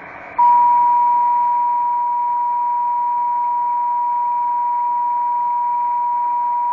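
A steady test tone at one unwavering pitch, starting about half a second in, sent over SSB and heard through a President Madison CB radio against a bed of receiver hiss.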